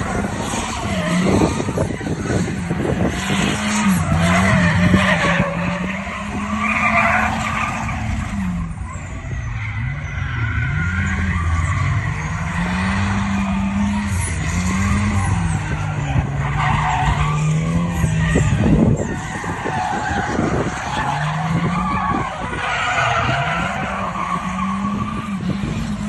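A drifting car's engine revving up and down again and again as the throttle is worked, with tyres squealing in long wavering squeals as it slides through the corners.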